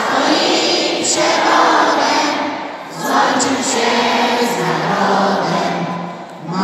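A choir singing a slow song in long held phrases, pausing for breath about three seconds in and again near the end.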